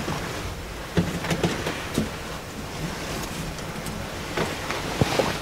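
Hunters shifting inside a wooden box blind: soft clothing rustle and a few light knocks and clicks as the rifle is handled and rested on the window ledge, with the strongest knocks about a second in and near the end.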